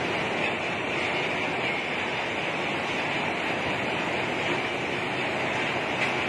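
Hot rolling mill for steel bars running: a steady, even machinery noise from the rolling stands and roller tables, with no distinct knocks or rhythm.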